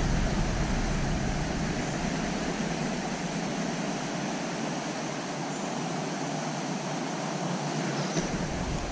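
Steady rush of creek water flowing over rocks, an even hiss with no change throughout. A faint small tick comes about eight seconds in.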